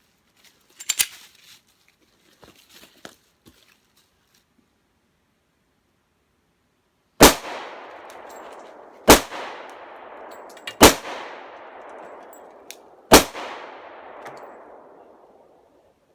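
Four pistol shots from a Glock 23 Gen 3 in .40 S&W, fired slowly about two seconds apart, each followed by a long fading echo. Before them come a few light metallic clicks of gun handling. The pistol stops after the fourth shot with a feed jam.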